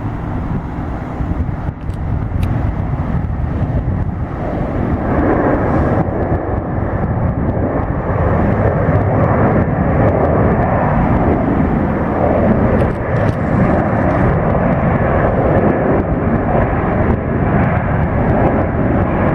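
Jet airliner engine noise, a steady rushing sound that grows louder about five seconds in and then holds.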